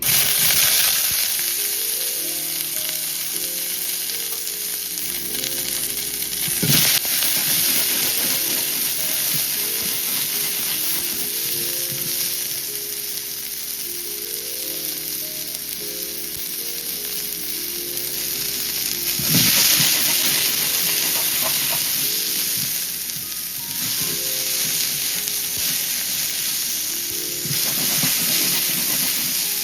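Food sizzling as it fries in a hot pan: a steady hiss that surges briefly about seven seconds in and swells again around twenty seconds.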